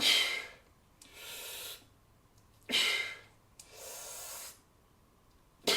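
A man breathing audibly in sharp, forceful breaths: three sudden hissy bursts, each followed by a longer, steadier breath.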